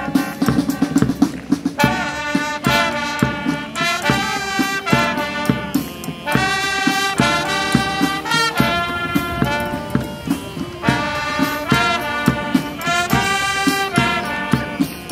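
A school cadet band playing: brass, including a sousaphone, plays phrases over a steady marching drum beat.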